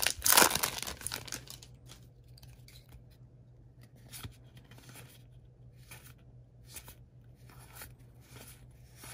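Foil wrapper of a Magic: The Gathering collector booster pack being torn open, a loud crinkling tear for the first second and a half. Then a run of soft, short swishes as trading cards are slid one behind another in the hand.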